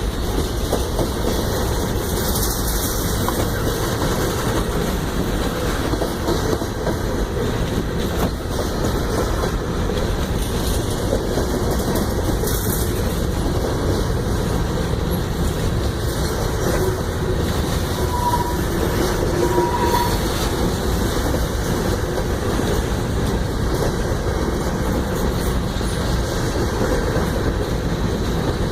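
Train cars rolling past: a steady, loud rumble of wheels on rail with a clickety-clack of wheels over rail joints.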